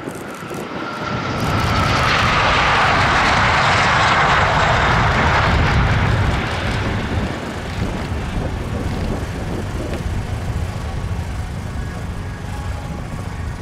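Hawk jet trainers' Adour turbofan engines as the jets fly past. A falling whine gives way to a loud jet rush that holds for about five seconds, then drops to a lower rumble as they move away.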